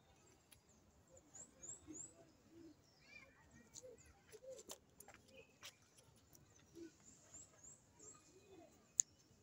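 Faint outdoor ambience: thin, high bird chirps in quick runs of three, twice, with a few soft clicks and one sharp click near the end.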